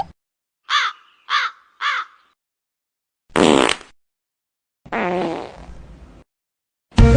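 A string of comedy sound effects: three short crow caws about a second in, then two fart sounds, a short loud blast and a longer one that trails off, with silent gaps between them. Music starts just at the end.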